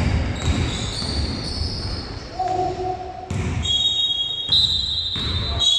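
Basketball bouncing on a court during play, with short high-pitched squeaks.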